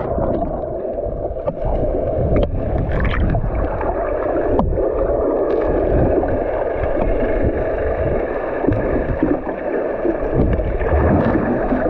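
Motorboat under way at sea: a loud, steady rush of engine and water.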